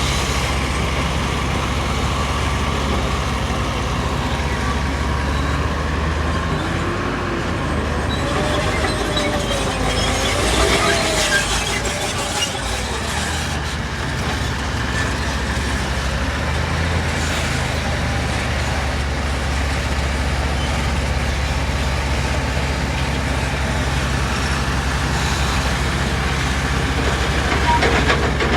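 Heavy diesel earthmoving machinery running steadily, its engine drone constant, with a brief wavering tone about ten seconds in.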